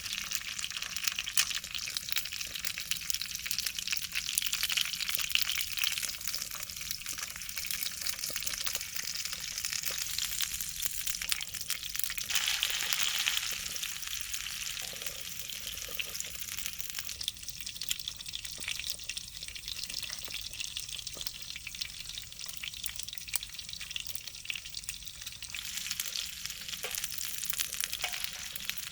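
Food frying in a pan: a steady sizzle full of small crackles, louder for a moment about twelve seconds in.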